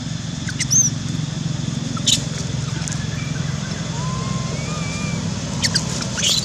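A steady, low, engine-like rumble, with a few sharp clicks and brief high squeaks, and faint wavering whistles about four seconds in.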